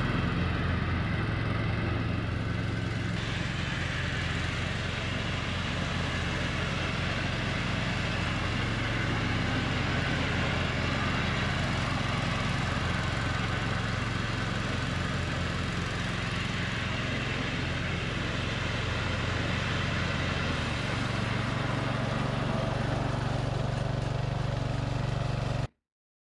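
Ariens riding lawn mower's engine running steadily as the mower is driven across the yard, with a slight change in tone about 21 seconds in; the sound cuts off abruptly near the end.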